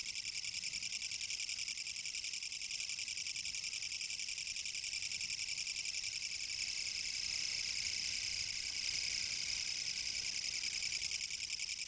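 Kutsuwamushi katydid (Mecopoda niponensis) stridulating: a continuous, fast, evenly pulsed high-pitched rasping buzz.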